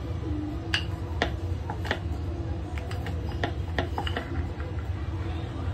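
Wooden rolling pin rolling out puri dough on a round wooden board (chakla), giving irregular light knocks and clicks as the pin taps and rolls over the board, over a steady low hum.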